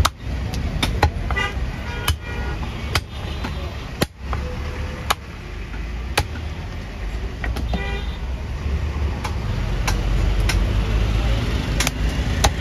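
Busy street ambience: a steady traffic rumble with short car horn toots about a second and a half in and again near eight seconds, and sharp knocks roughly once a second.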